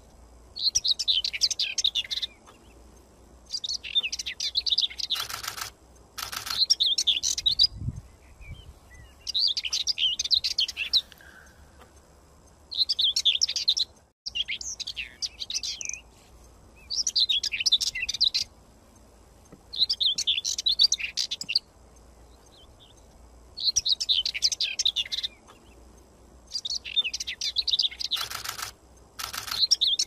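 Small songbird singing in phrases of rapid high chirps and trills, each a second or two long, repeated about every three seconds. A few short bursts of noise break in, two around six seconds in and one near the end.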